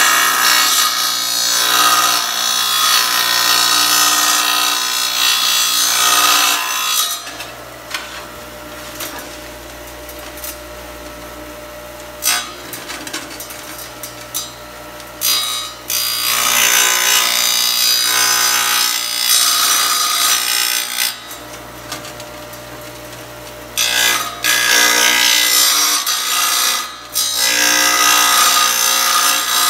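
Small wet tile saw running, its diamond blade grinding into a ceramic tile as the tile is fed against it to cut a curve. The grinding comes in three long bouts, with quieter stretches of the motor's steady hum in between.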